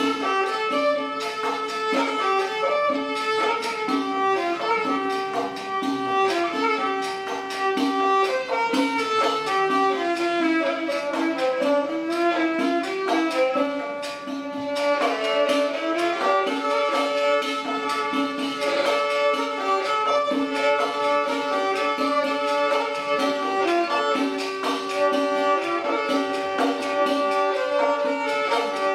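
Instrumental folk music: a fiddle-like string melody played over a steady, unbroken drone note.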